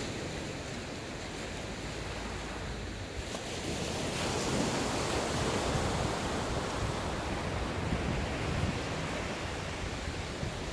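Small waves breaking and washing up on a sandy beach, a steady surf wash that grows louder about four seconds in.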